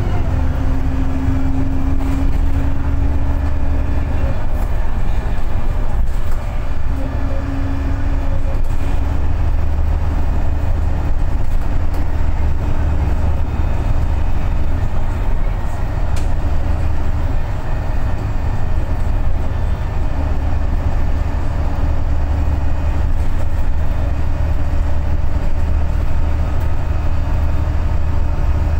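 VDL SB200 Wright Pulsar 2 single-deck bus running on the road, heard from inside the rear of the saloon: a steady low engine drone with a whining tone that comes and goes, strongest about a second in, around eight seconds in, and again from about twenty seconds in.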